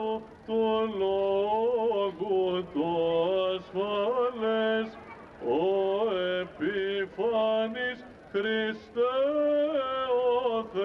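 A man's voice chanting Greek Orthodox Byzantine chant, solo, in long phrases that bend up and down in pitch, with short breaths between them.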